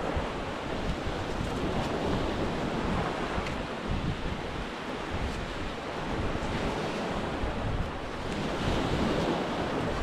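Surf breaking steadily on a beach, with wind buffeting the microphone.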